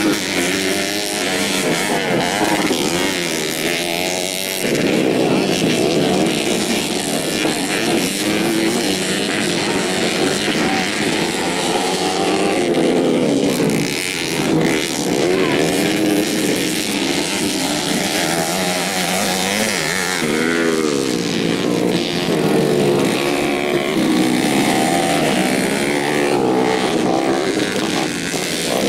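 Modified 125cc four-stroke underbone motocross bikes racing. Their engines overlap, revving up and down in pitch as the riders accelerate, shift and back off through the track's turns and jumps.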